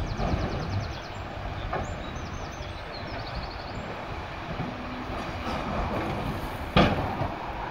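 Heavy earthmoving machinery running with a steady low rumble. There is a single sharp knock about seven seconds in and a fainter one near two seconds in.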